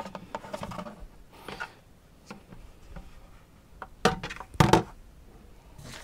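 Plastic GroBucket insert knocking and scraping against the inside of a black plastic 5-gallon bucket as it is lowered in for a test fit. Scattered light clicks, with a couple of sharper knocks about four and a half seconds in.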